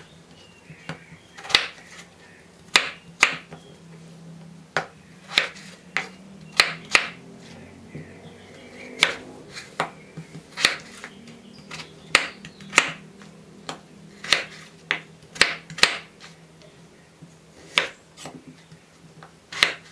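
Kitchen knife cutting peeled raw potatoes into chunks on a wooden cutting board: sharp, irregular knocks of the blade striking the board, about one or two a second.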